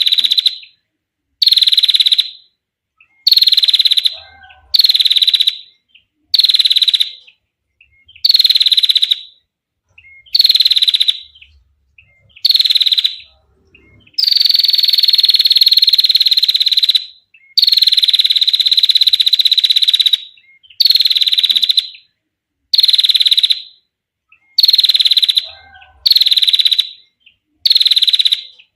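Female prinia (prenjak) giving long, clear trills (ngetir), repeated over and over, each about a second long with short silent gaps between them. Midway there is one much longer trill of about three seconds.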